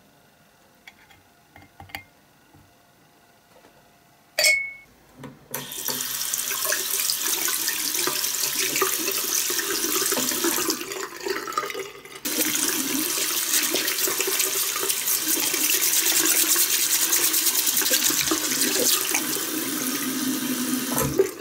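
A stream of rinse water splashing into a bathtub as a small brush scrubs paint-stripper gel off a diecast model. It starts about five seconds in, after a few faint clicks and a sharp knock, and dips briefly partway through.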